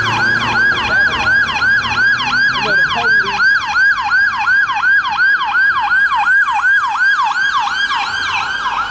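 Emergency vehicle siren in yelp mode, a loud fast up-and-down wail repeating about four times a second.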